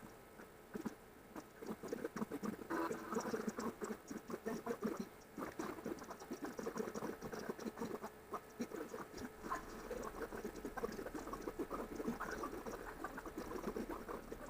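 A cat and her kittens, sped up about sevenfold by the timelapse, heard as a dense, continuous stream of quick squeaks and patter.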